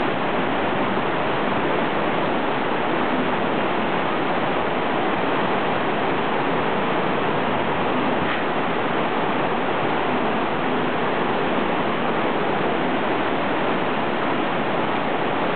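Steady rushing of a fast, shallow river churning over rocks and around the elephants' legs, an even continuous noise.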